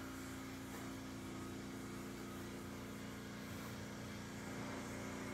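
Steady low machinery hum, with a few steady tones in it.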